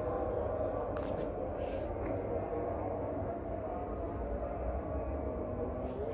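Night-time city ambience: a steady low hum of distant traffic, with an insect chirping high and regularly, about three chirps a second.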